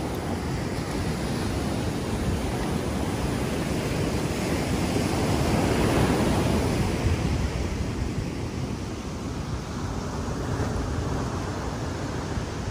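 Ocean surf breaking and washing up the sand, with wind on the microphone; the wash swells to its loudest about halfway through, then eases.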